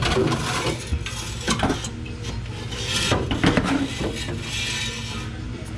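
Irregular metallic scraping and clinking of hand work, objects being pried and rattled, over a steady low hum.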